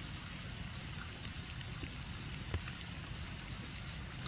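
Light rain with scattered drops ticking onto a small pond, one sharper drop about two and a half seconds in, over a steady low background rumble.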